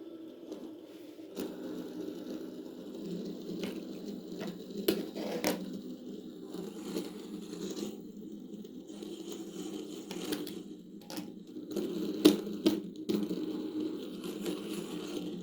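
Plastic pop tubes being stretched and squashed, a continuous ribbed rattle with sharp clicks scattered through, the loudest about twelve seconds in.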